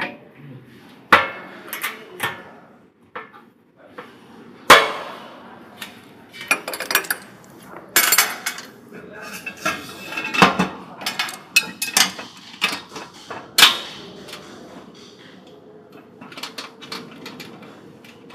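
Stainless steel funnel, tube and clamp parts of a vertical packing machine clanking and tapping against each other as they are fitted by hand: an irregular run of sharp metallic knocks, with a few loud ones spread through.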